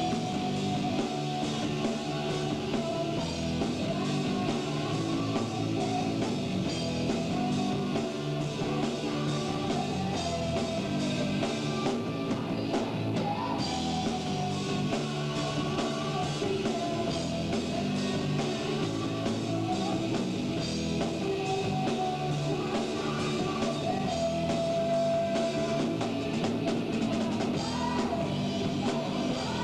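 A rock band playing live: drum kit, electric guitar and a singer's voice.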